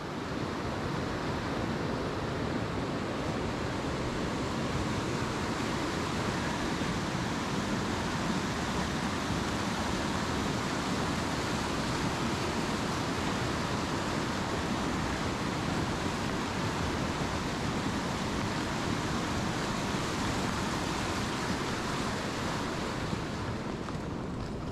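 A steady rushing noise with no breaks, spread evenly from deep to high, easing a little near the end.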